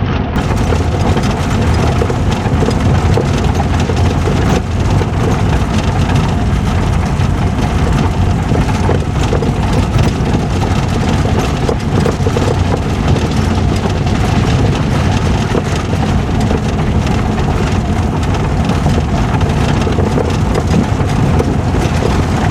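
An engine running steadily and loudly, with an even low rumble and no change in speed.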